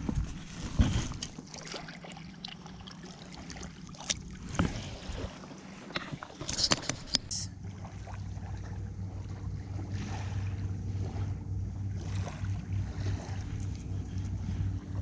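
Clicks and knocks of rod and tackle handling, then from about eight seconds in a spinning reel being cranked steadily, a low whirring hum with an even fast pulse, as a tube jig is retrieved.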